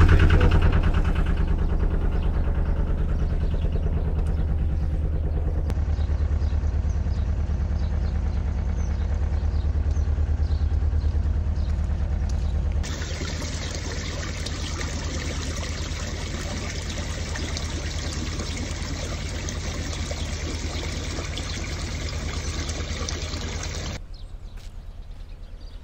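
Narrowboat diesel engine ticking over steadily, left running to charge the batteries. About halfway through, an even rushing hiss of water jetting through the lock gate as the lock fills takes over, with the engine still running underneath.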